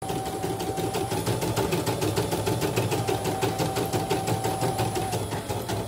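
CNY E900 portable embroidery machine stitching: a steady run of rapid, even needle strokes over a low hum. Its rotary hook was nicked by the needle and sanded smooth rather than replaced.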